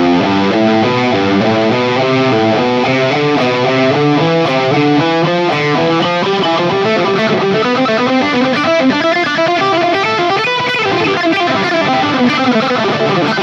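Electric guitar playing a fast, continuous run of picked single notes: four-note sequences climbing and descending through the modes of the major scale.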